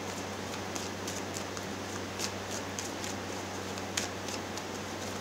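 Steady hiss and low hum of room tone, with a few faint, scattered clicks.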